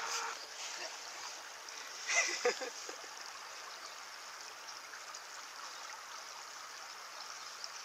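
Shallow river water flowing steadily, with a short louder noise about two seconds in.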